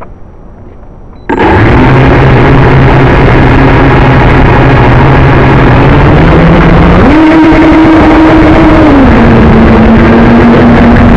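Brushless motors and propellers of a JJRC X1 quadcopter, recorded by the camera mounted on it: they start suddenly about a second in and run very loud with a steady hum under a heavy rush of wind and prop wash. About seven seconds in the pitch jumps up sharply as the throttle rises, then settles a little lower.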